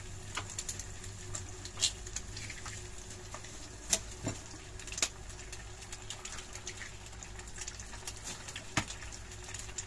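Breakfast cooking at a frying pan: eggs cracked into the pan and kitchen things handled, heard as scattered sharp clicks and taps, a few louder ones about 2, 4, 5 and 9 seconds in, over a steady low hum.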